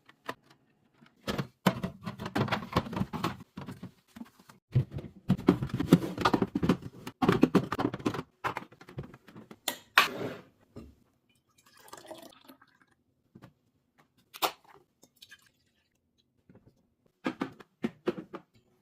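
Food containers and packaging being handled and set down: irregular clicks and knocks of plastic and glass, with two longer stretches of rustling clatter in the first half and a few sharp knocks later.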